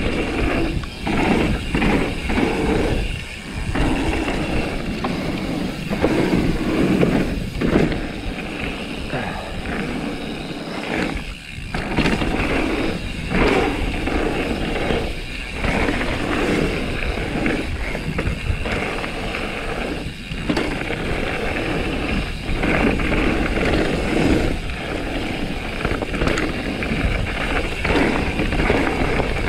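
Mountain bike descending a rough dirt trail: steady rolling and rattling noise of tyres, chain and frame, rising and dipping irregularly with the ground, with a few brief drops in level.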